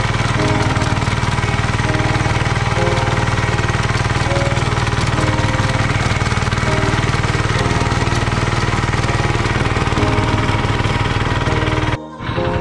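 Diesel hand tractor engine running steadily under load, close up, as its rotary tiller churns through soil. It cuts off suddenly near the end and music begins.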